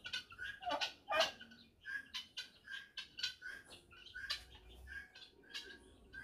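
A flock of helmeted guineafowl calling: a steady run of short, repeated calls, two or three a second, with two louder calls about a second in.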